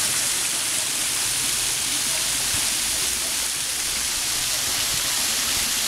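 Fountain water pouring over a rim in thin streams and splashing into the basin below, a steady hiss, with a hand held in one of the falling streams spraying the water.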